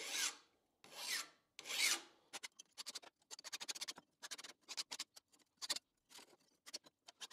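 Flat hand file scraping along the machined edges of a thin sheet-metal bracket: three slower strokes, then many short, quick strokes as the footage is sped up.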